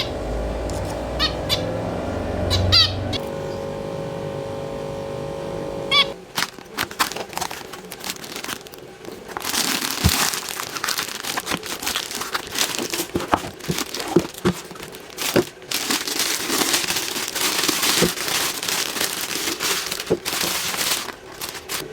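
Pet birds chirping in short calls over a steady hum for the first six seconds or so. Then packaging rustles and crackles with many sharp clicks, as the newly bought wooden breeding box is unwrapped.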